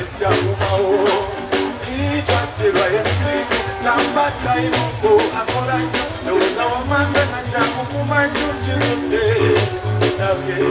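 Live band music with a steady drum beat, bass and guitar, and a male singer singing over it.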